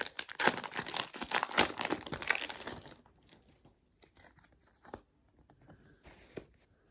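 Foil wrapper of a Disney Lorcana booster pack being torn open and crinkled for about three seconds, then quiet with a few faint taps.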